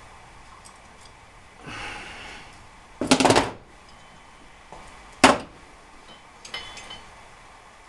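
Workbench handling noise while an alternator is reassembled: a quick rattle of clicks about three seconds in, the loudest sound, then a single sharp knock, then light metallic clinks with a short ring near the end.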